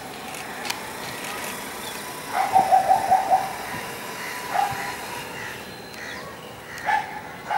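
Animal calls: a quick run of repeated short notes about two and a half seconds in, then single calls near five and seven seconds in, over a faint steady background.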